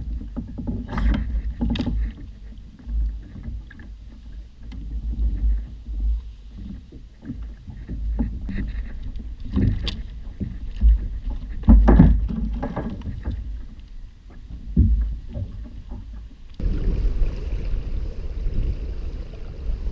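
Knocks and clatter of handling aboard a fishing kayak over a low wind rumble on the microphone. About 16–17 s in the sound changes abruptly to a steadier rush of wind and water.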